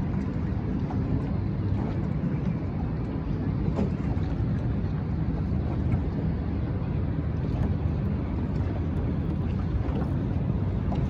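Steady low rumbling wind noise on the microphone, with the even background noise of a small boat on open water.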